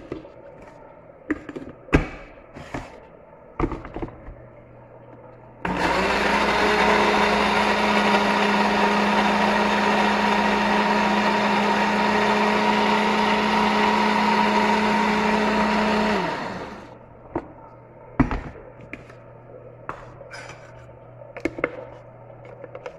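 Moulinex countertop blender motor starting about six seconds in and running steadily for about ten seconds while blending a watery mixture, then winding down with a falling pitch. Light knocks and clicks before and after as the jar and lid are handled.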